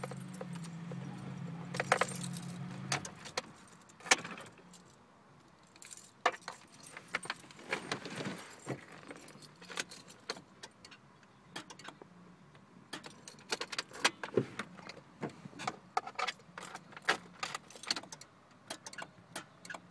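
Honda Prelude engine running with a steady low hum that cuts off about three seconds in, followed by keys jangling and clicking on and off.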